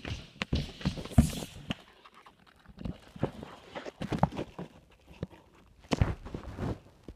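Irregular knocks, thumps and rustles in clusters, the loudest about a second in and again about six seconds in: handling noise from a moving handheld camera.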